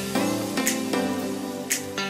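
Background music: held pitched notes with a light high hit about once a second.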